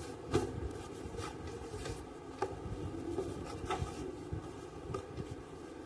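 Hands pressing and smoothing cloth flat on a table: soft rustling and brushing of fabric, with a few light taps and knocks.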